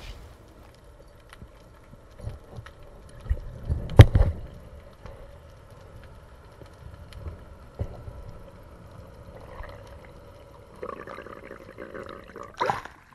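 Muffled underwater sound picked up by a camera in a waterproof housing during a freedive: low bumps and knocks, with one loud thump about four seconds in, over a faint steady hum. A rush of water noise builds near the end, with a short splashy burst just before the end.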